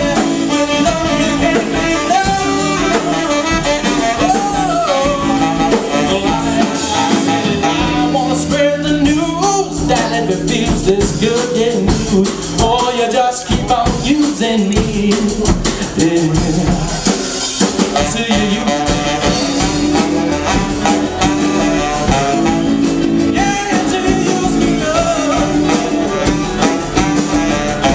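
Live band playing loudly and without a break: a male singer over saxophone and electric guitar.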